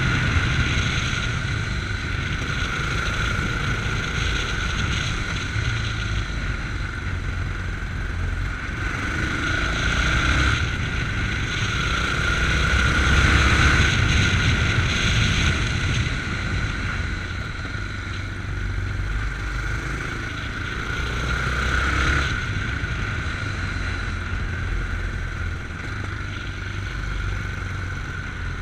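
Yamaha MT-03 motorcycle running at road speed, heard from the rider's chest, the engine sound swelling and easing off several times, loudest about halfway through.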